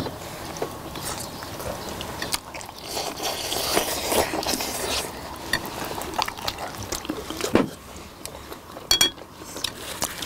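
Close-up eating sounds: people chewing and biting into braised chicken drumsticks, with scattered small clicks.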